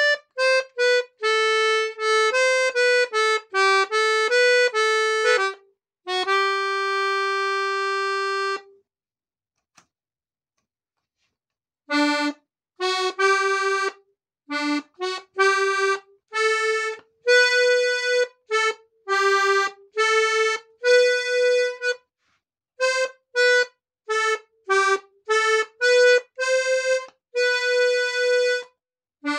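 Hohner Student piano accordion playing a melody one note at a time on the treble keys, with no bass. The notes are mostly short, with one long held note about six seconds in, then a pause of about three seconds before the tune resumes.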